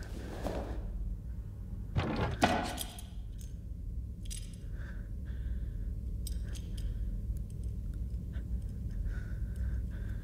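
Metallic clicks and clinks of a pistol and its magazine being handled and checked for rounds, two sharper clicks about two seconds in, over a low steady hum.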